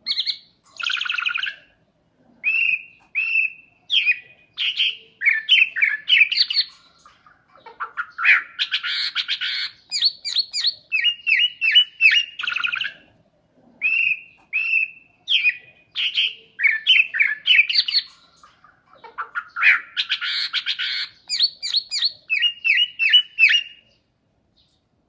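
A Chinese blackbird singing a continuous medley of short phrases of quick whistled and chirped notes, full of mimicked sounds that the captions list as swallow and magpie calls, cat and dog sounds and a hen's laying cackle. Two longer harsh, chattering bursts come about 8 and 20 seconds in. The song stops about a second before the end.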